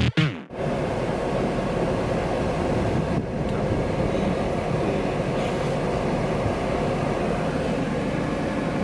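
An electronic intro tune cuts off in the first half second. It is followed by a steady car rumble and road noise.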